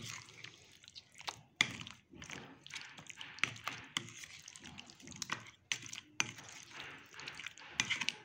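A spatula stirring chicken pieces through a thick curd marinade in a glass bowl. The mixing makes irregular wet scraping, with a few sharp clicks where the spatula knocks the glass.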